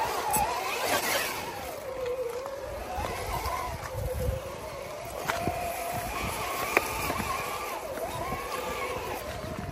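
1/10-scale RC rock crawler's electric motor and gears whining, the pitch rising and falling again and again with the throttle as it climbs over rock, with low knocks and crunches of the tyres and chassis on the rocks and a couple of sharp clicks.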